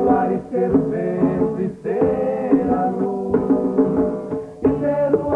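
Vocal group singing a folk song, accompanied by acoustic guitar and a hand drum.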